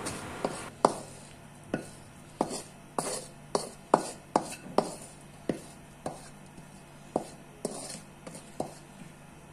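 Metal spatula tapping and scraping against a wok as stir-fried vegetables are pushed out onto a plate: short, sharp clicks at an irregular pace of about two a second.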